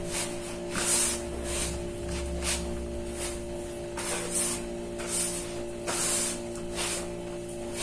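Hands kneading crumbly dough in a plastic bowl: repeated rubbing, squishing strokes, a little more than one a second.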